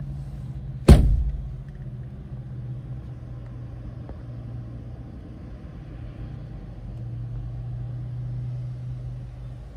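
A car door is slammed shut about a second in, one loud thud. It is heard from inside the car's cabin, over a steady low rumble.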